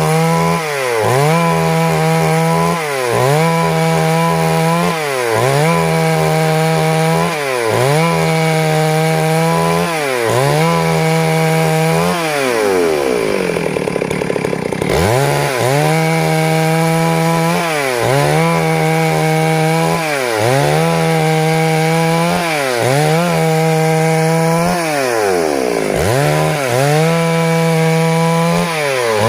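Stihl MS 382 two-stroke chainsaw running hard while cutting wood. Its engine pitch sags and recovers about every two seconds as the chain loads in the cut, with one longer, deeper dip about halfway through.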